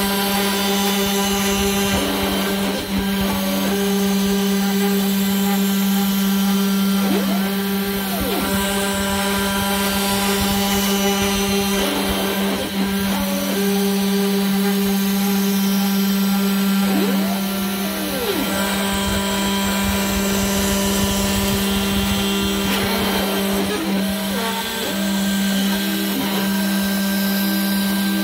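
Small CNC milling machine cutting at an increased feed rate: the spindle motor runs with a steady whine, and the axis motors whine up and down in pitch several times as the cutter changes direction.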